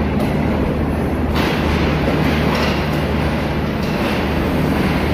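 Pakistan Railways Green Line Express passenger coaches rolling past along the platform as the departing train picks up speed. It is a loud, steady rumble of wheels on rail with a low hum underneath.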